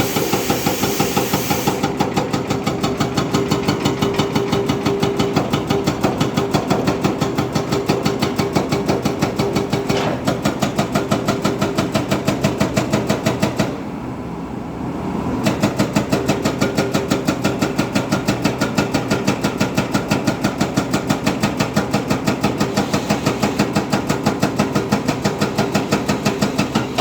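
Diesel engine of a JCB 3DX backhoe loader running with an even, steady pulsing beat, about four pulses a second, over a steady hum. About halfway through, the beat drops away for a second or two, then resumes.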